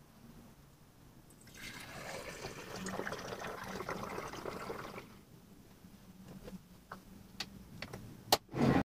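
Home-brewed rice beer poured from a plastic jug through a plastic funnel into a glass bottle: a splashing stream for about three seconds. Then a few light clicks and a loud clack near the end as the bottle's swing-top stopper is snapped shut.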